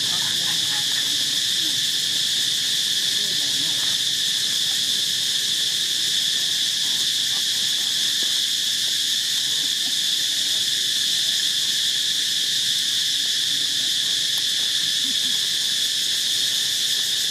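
Insects droning in a steady, unbroken high-pitched chorus.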